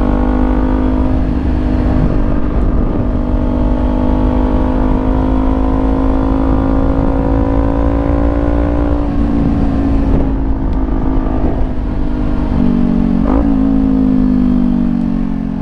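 Kawasaki Ninja 400 parallel-twin through a Leo Vince GP Corsa EVO slip-on exhaust, running at fairly steady revs. The note steps about nine seconds in, and the revs ease down near the end. Wind rushes on the microphone.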